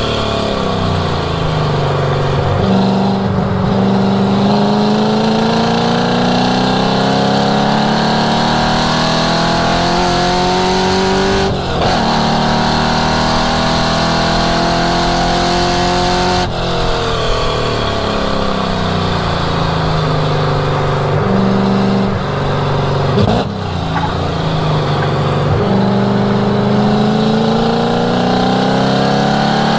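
V8 exhaust note of a 1967 Ford Mustang track car driven hard on a circuit, the revs climbing and falling again and again as it accelerates, shifts gear and lifts for corners, with sharp breaks in the note about twelve, sixteen and twenty-three seconds in.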